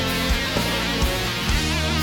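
Background music: an instrumental stretch of a guitar-led song, with a beat of low drum thumps under it.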